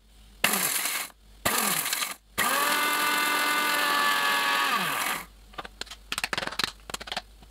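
Bosch mixer grinder grinding whole spices to powder: two short pulses of the motor, then a run of about three seconds with a steady whine that winds down as it is switched off. Then a few clicks and rattles as the steel jar is lifted off the base.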